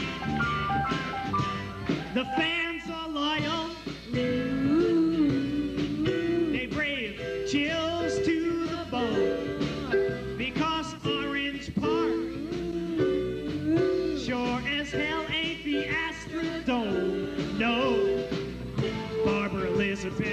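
Live rock band playing: electric guitars, drum kit and keyboard, with a lead melody that slides and bends over the band.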